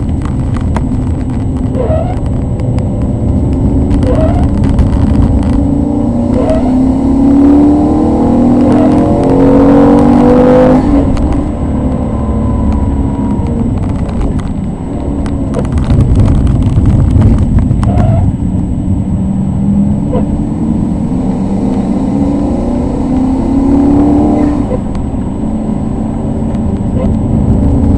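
Maserati 3200 GT's twin-turbo V8, tuned to about 460 hp, heard from inside the cabin, accelerating hard through the gears. The engine note climbs to a peak about ten seconds in, drops at a gear change or lift, then builds again with shorter rises and falls through the corners.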